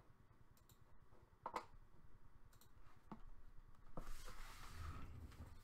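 A few sharp clicks in a quiet room, the clearest about one and a half seconds and three seconds in, then a soft rustle from about four seconds in.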